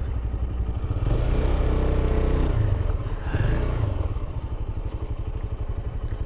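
2012 Honda CB 300R's single-cylinder engine running at low speed, heard from the rider's seat. The engine note is a little louder between about one and three seconds in.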